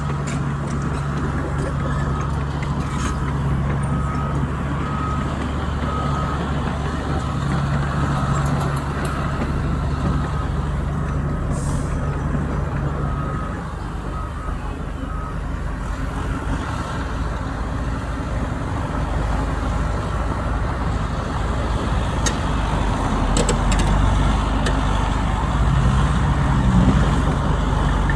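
Heavy diesel earthmoving machinery, bulldozers and a dump truck, running steadily, with the engine note changing about halfway through. A repeating high beep sounds on and off during the first half.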